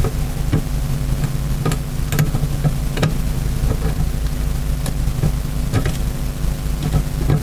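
Irregular small metallic clicks and taps of a screwdriver and small screws being worked into a Quadrajet carburettor, over a steady low machine hum.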